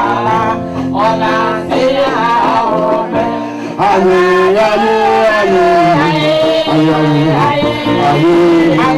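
Music with singing over instruments; it gets louder about four seconds in.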